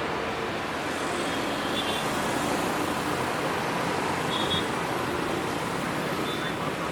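Steady road traffic: cars, motorbikes and buses running past on a busy city road, a continuous wash of engine and tyre noise with no single vehicle standing out.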